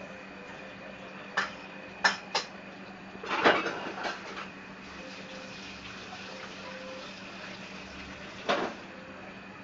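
Red-eared slider turtles scuffling in a plastic tub of water: sharp knocks of shell and claws against the plastic, three of them in quick succession, then a louder clattering burst with splashing about halfway through, and one more knock near the end.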